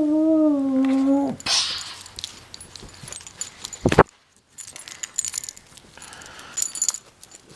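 A beagle puppy howls, one long call that sags slightly in pitch and breaks off about a second and a half in. Then come rustling and the small jingling clicks of her collar tags as she is handled, with one sharp knock about four seconds in.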